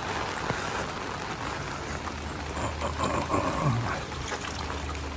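Steady hiss of heavy rain, with a vehicle's engine humming low from about two seconds in.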